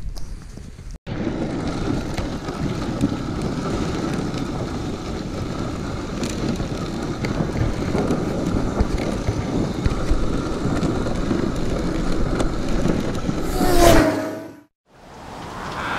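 Dog sled runners rushing over packed snow, with wind buffeting the microphone: a steady, loud rushing noise. Near the end a short squeal slides in pitch, then the sound drops away abruptly.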